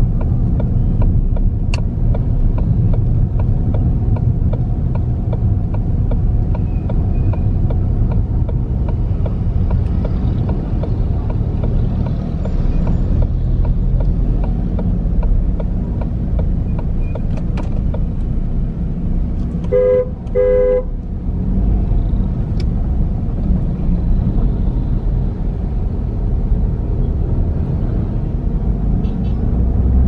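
Steady low rumble of engine and road noise inside a moving car, with a vehicle horn beeping twice in quick succession about two-thirds of the way through.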